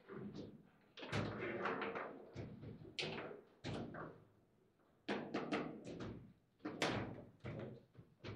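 Table football being played: an irregular run of sharp knocks and clacks as the ball is struck by the player figures and the rods bang against the table. Some hits come in quick clusters, each with a short ringing tail.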